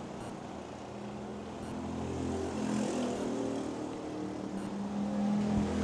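Mini Cup race car engines running at speed, growing louder as two cars come through the turn toward the microphone.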